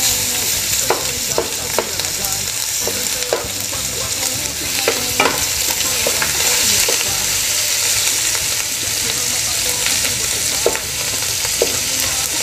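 Diced bacon and crumbled sausage meat frying in oil in an aluminium pot, a steady sizzle, while a wooden spoon stirs them, scraping and knocking against the pot now and then.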